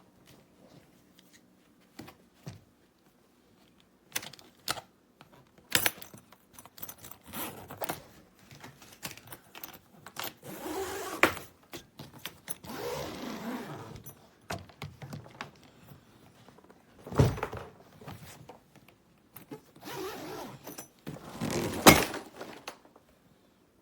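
Handling noise from a hardshell carry-on suitcase: scattered clicks and knocks of its plastic shell and lock, with several longer rasping scrapes and a sharp knock near the end.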